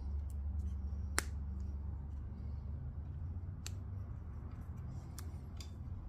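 A few small sharp clicks from the hand-held Magura MT7 brake lever assembly as the lever is squeezed and its BAT plug is fitted back in, the loudest about a second in, over a faint steady low hum.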